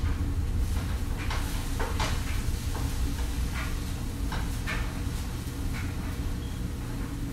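Wooden spatula stirring sliced red onion around a frying pan, with irregular scrapes and knocks against the pan, over a steady low hum.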